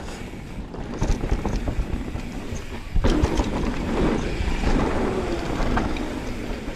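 Mountain bike riding down a rough dirt trail: tyres rolling over the ground and the bike rattling, with wind on the microphone. It turns louder and rougher about three seconds in.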